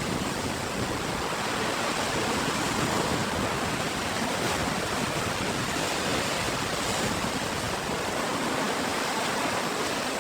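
Ocean surf: a steady rush of waves washing on the shore, with no distinct single breakers.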